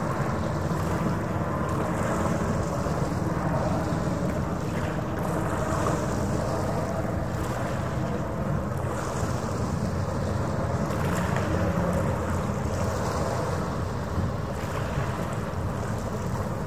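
Harbour ferry passing, its engine a steady low drone. Water washes in swells every few seconds, with wind on the microphone.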